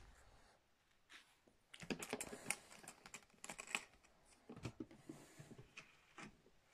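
Quick, light clicks and taps of small hard objects being handled and set down, in an irregular patter of many strokes.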